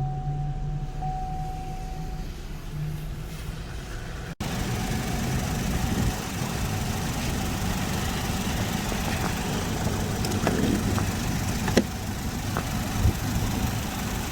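2010 Chevrolet Equinox engine running at idle, the no-start cured by a new starter relay. A steady high tone sounds over it at first, the sound changes abruptly about four seconds in, and a couple of sharp clicks come near the end.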